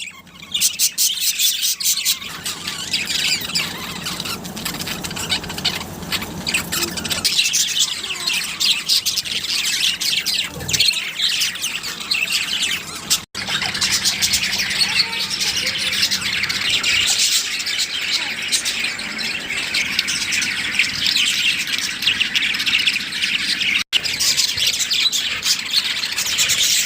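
Budgerigars chirping and squawking continuously in a dense, busy chatter, with two brief cuts in the sound.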